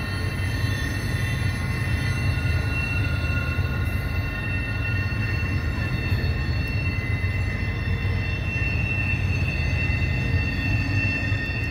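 Freight train moving slowly around a sharp curve: a steady low rumble of the train with sustained high-pitched wheel squeal over it.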